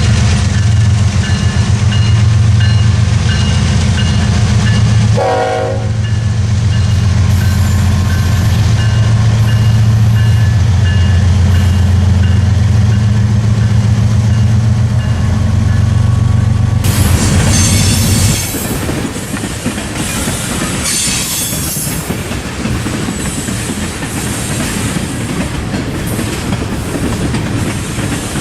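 Diesel locomotives of a Canadian Pacific train passing close, with a heavy steady engine rumble and a brief horn sound about five seconds in. About eighteen seconds in the engine rumble gives way to railcars rolling by, wheels clicking over the rail joints.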